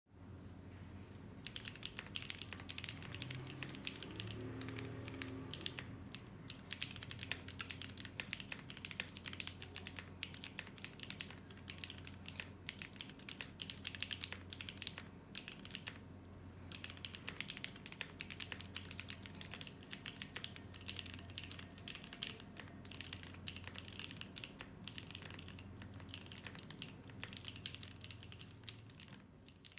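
Fast, continuous typing on a Kerf60 Alice-layout mechanical keyboard with an acrylic case and FR4 plate. The keys clack in quick runs, with a short pause about halfway through.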